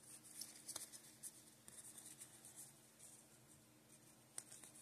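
Faint scraping slides of Upper Deck trading cards rubbing card against card as a handful is thumbed through, with a sharp tick about three-quarters of a second in and another near the end.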